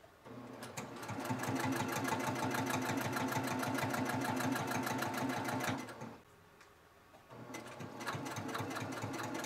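Domestic sewing machine stitching a seam through two layered fabric blocks, its needle running in a fast, even rhythm. It starts a moment in, runs for about six seconds, stops briefly and then starts again.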